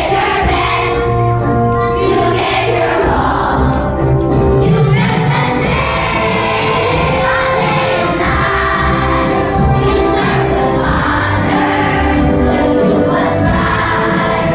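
A choir of second-grade children singing together over an instrumental accompaniment.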